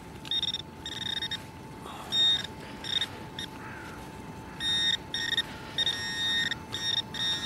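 Handheld metal-detecting pinpointer beeping as it is probed through loose soil in a dug hole. The beeps are short and scattered at first, then come in quick, near-continuous runs in the second half: the probe is picking up a buried metal target.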